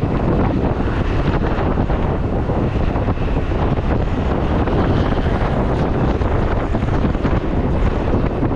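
Wind buffeting the microphone of a moving motorcycle: a loud, steady rush of wind noise.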